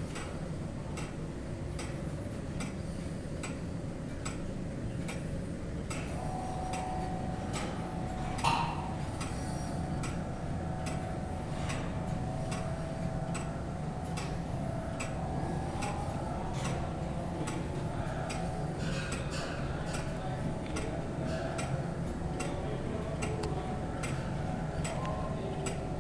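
Late-17th-century brass verge clock movement ticking steadily, the crown wheel and verge escapement beating at an even rhythm over a low steady hum. A single louder knock with a short ring comes about eight and a half seconds in.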